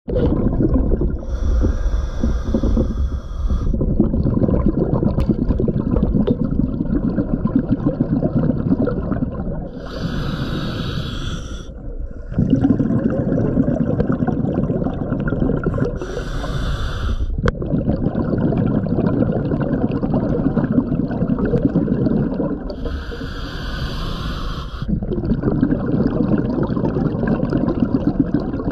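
Scuba diver breathing underwater through a regulator: four slow inhalations, each a hiss of about two seconds, with long streams of exhaled bubbles crackling and gurgling between them.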